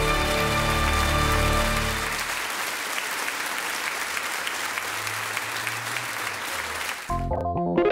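A crowd applauding, with music under it that stops about two seconds in. The applause then goes on alone, and guitar music starts up near the end.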